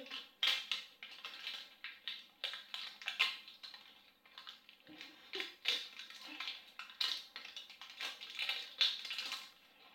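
Crinkly wrapping of an L.O.L. Surprise ball rustling and crackling in short, irregular bursts as it is peeled off by hand.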